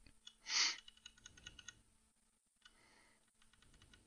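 Quiet computer keyboard clicking: runs of rapid key presses, around ten a second, moving the cursor down through a file in a terminal text editor. A short rush of noise about half a second in is the loudest sound.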